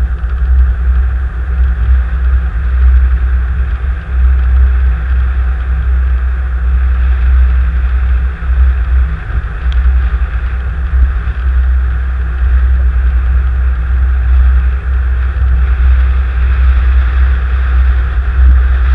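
Steady low rumble of a car driving, heard from a dash cam inside the cabin: engine and road noise, with one small click about halfway through.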